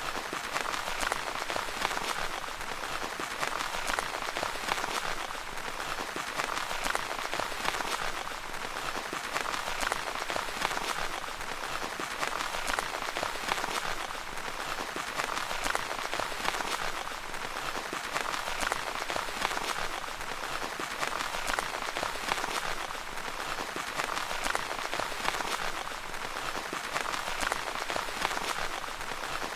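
Steady rain pattering on a tent's fabric, a dense patter of many small drop impacts that swells gently every few seconds.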